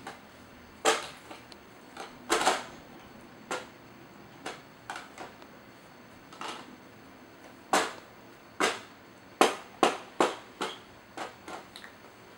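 Plastic baby toys knocking and clattering as they are handled: a string of short, sharp, irregular knocks, coming faster in the second half.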